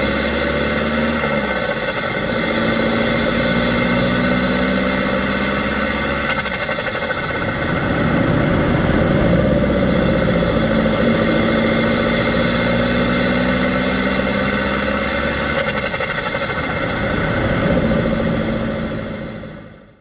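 Fiat Doblò van with a tuned 1.3 Multijet diesel engine and a big Garrett 1549 turbo, driving along, its engine note climbing and dropping back a few times. The sound fades out at the end.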